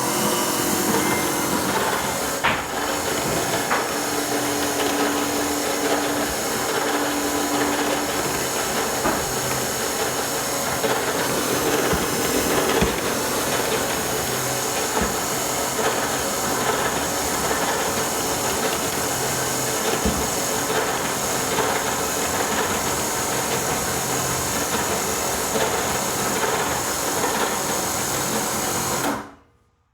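A motor running steadily, switched on at the start and cutting off suddenly near the end: a homemade garage door opener hauling the door by a strap.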